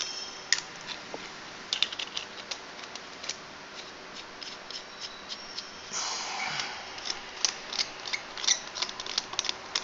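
Polished stainless steel vape mod tubes and parts being handled: a sharp metallic clink about half a second in, then a run of small clicks and taps with a brief metallic ring, and a short scraping rustle about six seconds in.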